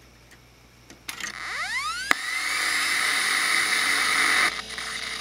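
Power Macintosh 7300 switched on: a click about a second in, then its Quantum Fireball hard drive spinning up with a whine that rises steeply over about a second, the motor's switching noise picked up by the Mac's internal speaker. A loud steady hiss follows, then drops back to a quieter hum with a steady tone near the end.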